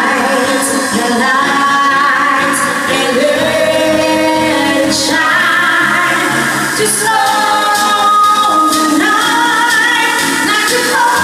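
A woman singing a pop song into a microphone over a sing-along backing track, amplified through the bar's speakers.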